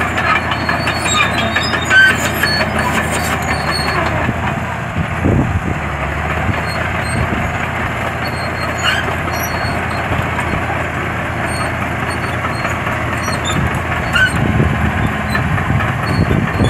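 Caterpillar D6D crawler dozer running under way, its diesel engine droning steadily with the clatter of its steel tracks.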